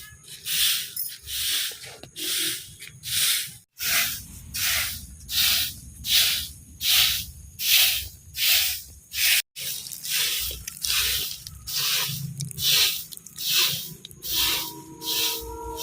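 Rhythmic hissing, scraping strokes, a little more than one a second, evenly paced and steady throughout. Faint music comes in near the end.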